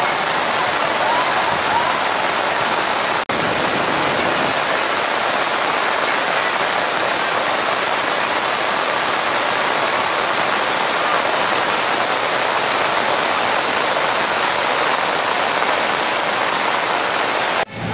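Heavy rain pouring down in a steady, dense hiss, broken by a momentary dropout about three seconds in.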